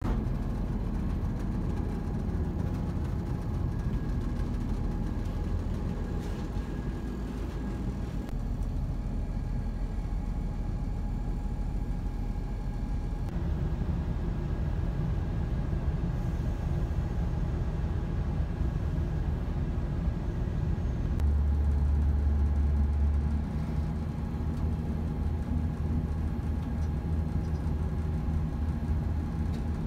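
Inside a Class 170 Turbostar diesel multiple unit: the steady low rumble of the underfloor diesel engine running, with a faint steady whine over it. The rumble swells louder for a couple of seconds about two-thirds of the way through.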